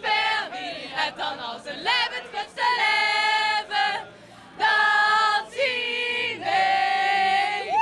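A group of women singing together without accompaniment, ending in a few long held notes with a short break about four seconds in.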